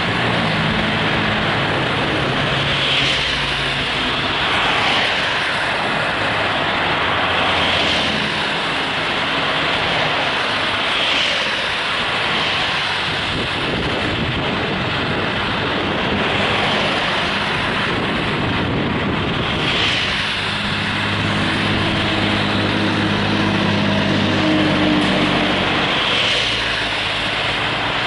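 Road and wind noise from a car driving at speed, with a steady low engine hum and other vehicles swishing past every few seconds.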